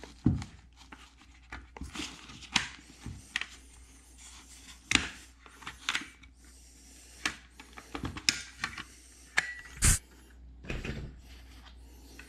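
Visor of an AGV Pista GP R motorcycle helmet being handled and fitted against the helmet shell: irregular plastic clicks, taps and rubs, a few of them sharp.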